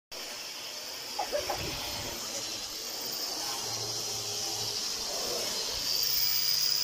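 Angle grinder running steadily as it strips old paint from wooden plank siding: a high whine over a hiss, getting louder near the end.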